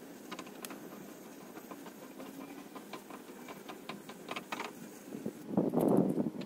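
Scattered light metallic clicks and ticks of a hand rivnut gun being worked against the steel tailgate while setting a threaded rivnut. Near the end, a louder short rush of noise lasting under a second.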